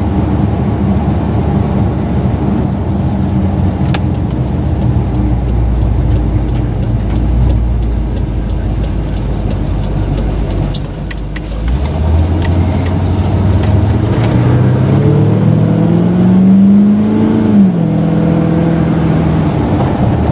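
Carbureted engine of a 1984 Chevrolet K20 pickup, heard from inside the cab while driving. A steady low drone with light ticking dies down a little past halfway. The engine then pulls away, its pitch rising for several seconds until the automatic transmission shifts up near the end and the pitch drops.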